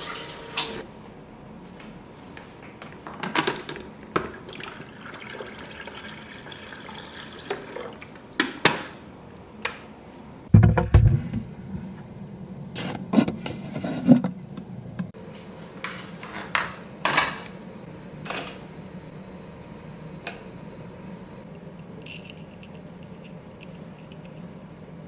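Scattered knocks and clinks of household objects being handled and set down, with one heavier low thud about ten seconds in, followed by a faint steady low hum.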